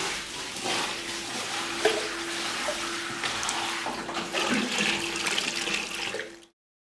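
Whey sloshing and splashing as it is poured off and drawn out of a cheese vat through a sieve, with a faint steady hum underneath; the sound cuts off abruptly near the end.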